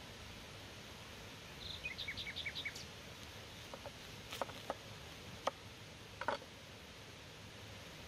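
A small bird gives a quick run of about six short chirps, then a knife knocks sharply on a wooden cutting board several times as an onion is sliced, the loudest knock about halfway through.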